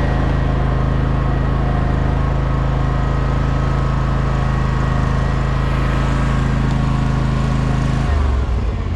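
Engine of a ride-on mower running steadily at speed, its note dropping to a lower pitch about eight seconds in as it throttles down.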